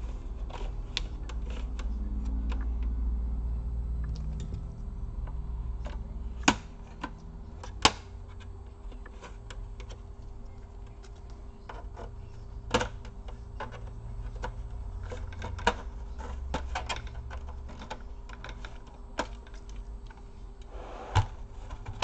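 Plastic snap clips of a Dell Vostro 15 3568 laptop's palmrest and bottom case clicking and popping as the two halves are pried apart by hand, with sharp clicks at uneven intervals over low handling rumble.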